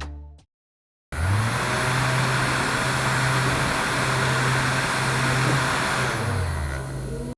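A motor running steadily with a low hum over a loud hiss. It starts about a second in with the hum rising in pitch, and the hum drops in pitch near the end before the sound cuts off.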